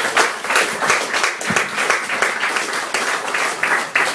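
Audience applauding, dense clapping.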